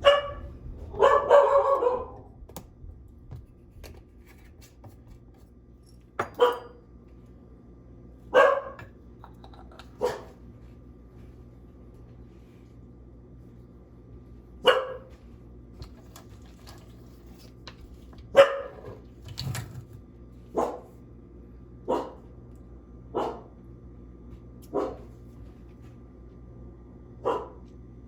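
A dog barking in single short barks, about a dozen of them spaced one to four seconds apart, the first one longer and drawn out.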